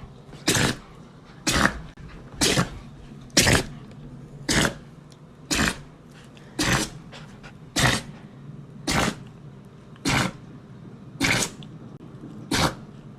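A dog sneezing over and over, about one sneeze a second, a dozen in a row.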